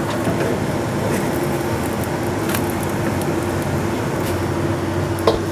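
Steady kitchen drone from a running fan motor and a lit gas stove burner, with one constant low hum. A few light clicks come through it.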